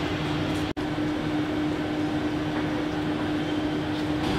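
Steady mechanical hum with one constant low tone over city street noise, broken by a split-second dropout under a second in.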